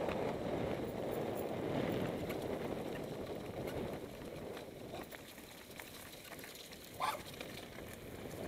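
Mountain bikes riding downhill: tyres rolling and rattling over grass and gravel with scattered clicks from the bike, the noise easing off about halfway through as they roll onto smooth asphalt. A brief sharp sound comes near the end.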